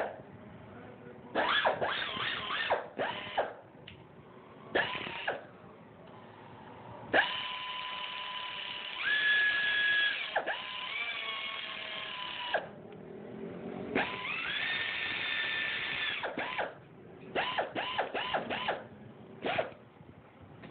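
Electric drill with a socket spinning down the cylinder head bolts on a Yamaha Crux engine. The motor whines in short bursts and in two longer runs of a few seconds, from about 7 and about 14 seconds in, spinning up at the start of each.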